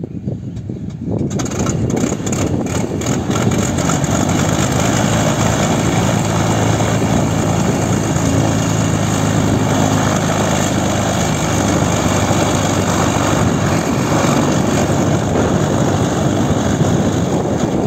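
Cessna 400 Corvallis TT's turbocharged six-cylinder Continental engine being started: a brief uneven cranking, then it catches about a second in and runs at a steady idle with the propeller turning.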